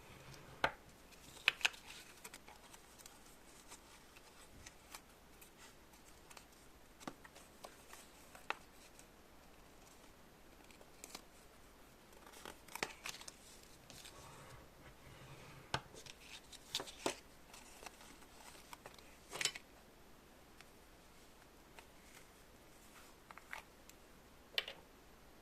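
Scattered light clicks and handling noises of small hand work, irregular, with quiet stretches between.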